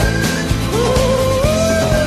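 Background music: a wavering, sliding lead melody over a steady accompaniment.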